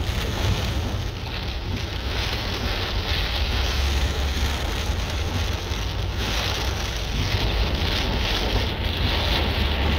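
Heavy rain beating on a moving car's windshield and body, heard from inside the cabin as a steady hiss over a constant low rumble of the car and the wind.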